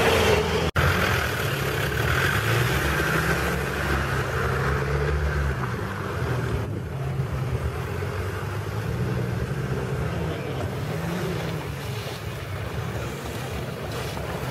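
Mitsubishi Pajero Pinin's four-cylinder GDI petrol engine revving up and down as the 4x4 drives through deep mud, its pitch rising and falling again and again. The sound drops out for an instant under a second in.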